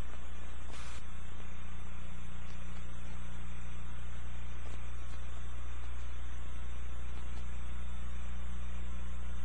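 Low steady electrical hum with a stack of overtones, under an even tape hiss, on the silent soundtrack of a videotape copy; a faint click about a second in.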